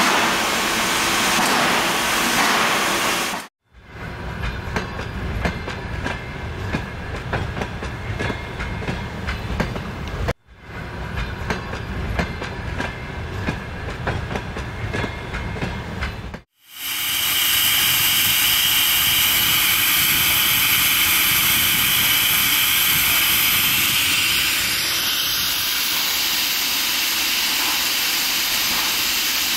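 Steam train in a run of short cuts: a hiss, then the uneven clatter of the moving train's wheels over the rails, then a long steady hiss.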